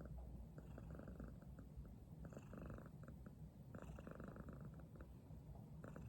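Domestic cat purring close up, a steady low rumble that swells into a louder rasp about every one and a half seconds.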